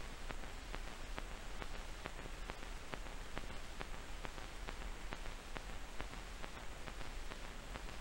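Faint hiss of an old film soundtrack with soft, fairly regular clicks about three times a second; no music or voice.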